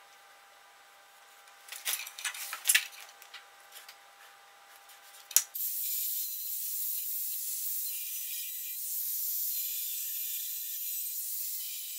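A few clicks and knocks of tools being handled, then about five and a half seconds in an angle grinder starts and cuts into the steel tubing of the car's chassis, a steady hissing grind.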